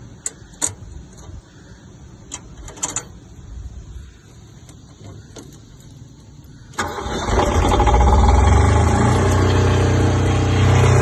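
A few light clicks and knocks, then about seven seconds in a small diesel engine cranks and fires, picking up speed and settling into a steady idle. Its injector pump has just been rebuilt after the plungers froze up.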